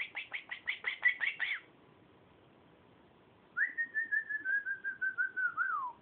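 Blue Quaker parrot whistling: a quick run of about ten falling chirps, then after a pause a phrase of a dozen short, even whistled notes that ends in a downward slide.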